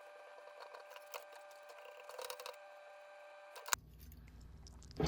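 Quiet room tone with a faint steady whine, a few light clicks and a brief soft rustle about two seconds in; a low hum comes in near the end.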